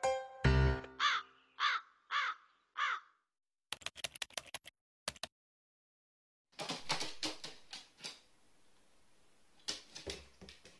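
A crow caws four times, about half a second apart, as a short music jingle ends. A quick run of sharp typewriter-like clicks follows, and later scattered clicks and light taps over faint room noise.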